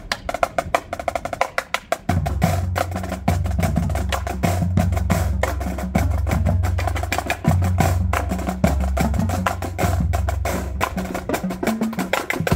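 High school marching drumline of snare drums, tenor drums and bass drums playing together in fast, dense strokes. Low drum notes join about two seconds in and carry on under the snares.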